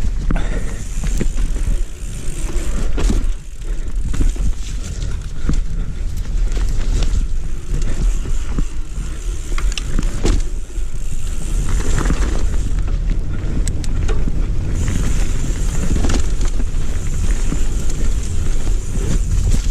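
Ragley Big Al hardtail mountain bike riding down a dirt trail: a steady tyre rumble with many small knocks and rattles from the bike over bumps, and a low rushing of air against the microphone.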